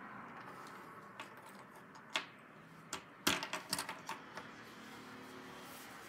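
Plastic action figure handled on a wooden tabletop: a few scattered clicks and knocks, then a quick run of clacks starting about three seconds in, the first the loudest.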